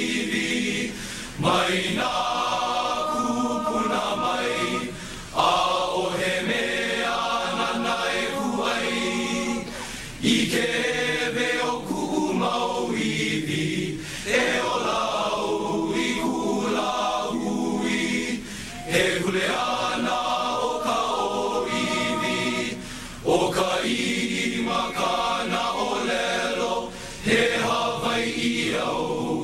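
A Hawaiian-language song sung by a group of voices, in long held phrases of about four seconds each with brief pauses between them.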